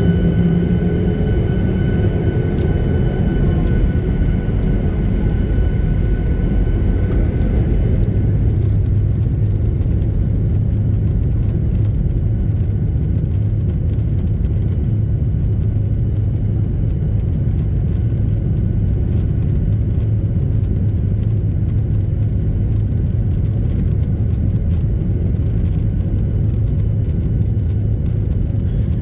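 Jet engines of a Boeing 737-800 heard from inside the cabin beside the wing: a steady low rumble, with a thin whine that fades out about eight seconds in.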